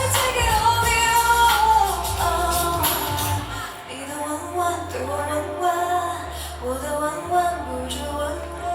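Pop song performed live: a female voice singing a melody over backing music with a steady bass line.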